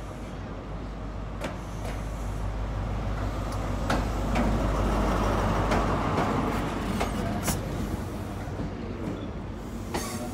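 Class 43 HST diesel power car rumbling as the train arrives slowly into the platform, loudest about four to seven seconds in as it passes close. Then the coaches roll by, their wheels clicking now and then over the track joints.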